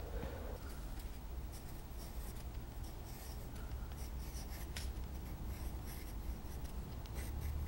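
Pencil drawing on a large sheet of paper: a run of light, quick scratching strokes that starts about a second and a half in, over a low steady room hum.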